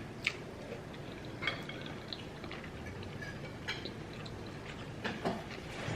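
Quiet eating sounds while eating spaghetti: a handful of short, faint clicks and smacks, scattered irregularly, from cutlery on a plate and the mouth.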